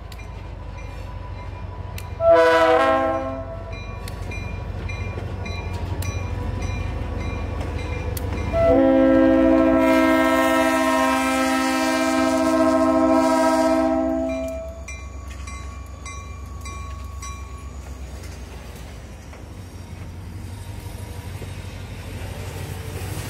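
Canadian Pacific EMD SD40-2 diesel locomotive sounding its multi-chime air horn, a short blast about two seconds in and then a long blast of about six seconds, over the steady rumble of the passing train. After the horn, the hopper cars roll slowly past with scattered wheel clicks.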